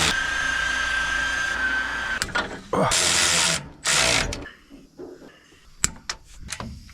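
Handheld power tool running on the steering linkage's clamp bolts: one steady run of about two seconds, then two short bursts about three and four seconds in, followed by a few sharp metal clicks near the end.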